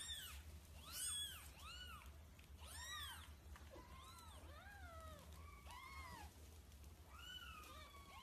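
Newborn kittens mewing: a run of short, high, thin cries, each rising and falling in pitch, about two a second, some overlapping.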